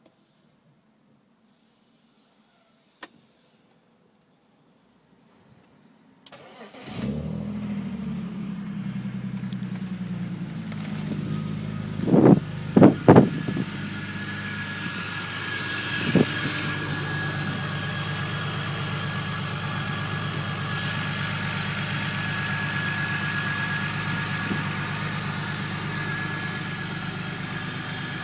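A turbocharged BMW E46 330i's straight-six engine is started cold about six seconds in, then runs at a steady idle with a few quick revs around halfway. The oil is still cold, and the engine's known ticking is not yet heard.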